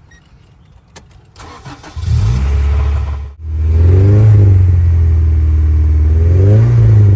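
A 1994 Acura Integra's four-cylinder engine is started: a click, a moment of cranking, then it catches and runs loudly. After a brief break it settles into a steady idle, with two light revs near the end.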